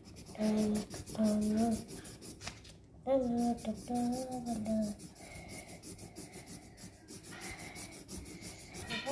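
A colouring pen scribbling on paper in quick back-and-forth strokes, several a second, filling in a shape. In the first half a child hums a few held notes over it.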